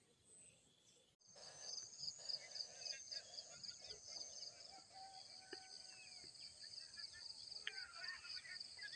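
Insects trilling steadily in a high, finely pulsing chorus, with scattered bird chirps. It starts suddenly about a second in, after near silence.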